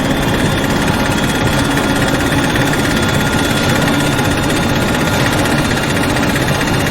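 Heavy industrial machinery running steadily: a dense mechanical rumble with several high, steady whining tones above it.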